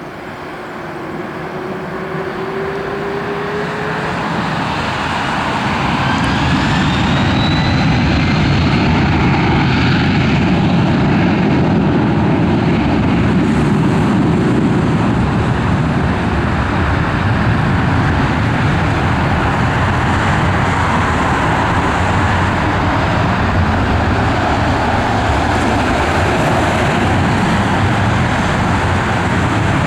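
Boeing 767-300's twin GE CF6 turbofans at takeoff thrust. The sound swells over the first several seconds with a rising whine, then holds as a steady, loud jet roar.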